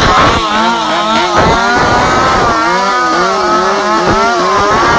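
Two-stroke chainsaw engines mounted on bikes, revving against each other in a rev-off. Their pitch wavers up and down a couple of times a second as the throttles are blipped.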